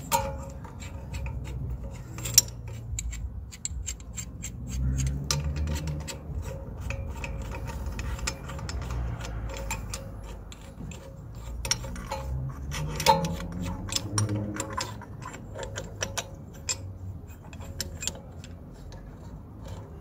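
Irregular metallic clicks, taps and scraping from hand tools being worked on a car's front brake caliper to wind back the piston, with a low rumble that swells twice.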